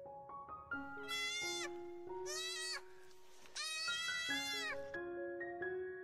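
Three bleating animal calls, the last the longest and wavering, over background piano music.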